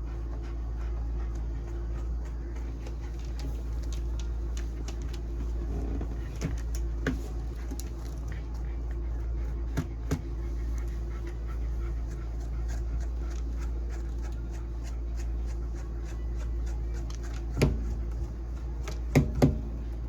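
Brushing of a dog's coat: many light clicks and scratches over a steady low hum, with a few louder knocks near the end.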